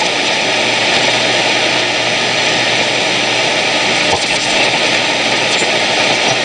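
Steady shortwave static hiss from a 1950 Philips BX200U valve radio's loudspeaker, between stations as the dial is tuned across the 50-metre band, with a brief crackle about four seconds in.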